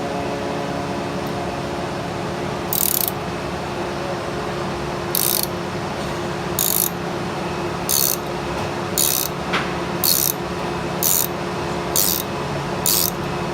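Heat gun running with a steady hum, joined from about three seconds in by short ratcheting bursts about once a second, as the heated fitting is worked loose.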